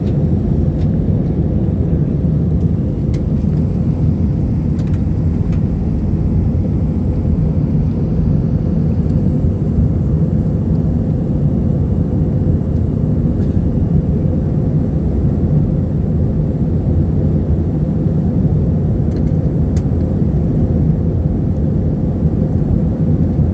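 Steady low rumble of an airliner cabin with the jet engines running, heard from inside the cabin, with a faint steady hum on top.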